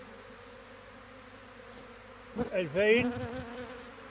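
A honeybee swarm clustered in the open, humming steadily. About two and a half seconds in, a louder buzz swoops up and down in pitch for under a second, typical of a bee flying close past the microphone.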